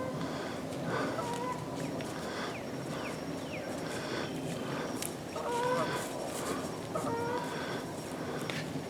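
Short pitched calls of large birds, heard several times: near the start, about a second in, and in a cluster between five and seven and a half seconds. A few quick falling whistles of a smaller bird come around two and a half to three seconds, over steady outdoor background noise.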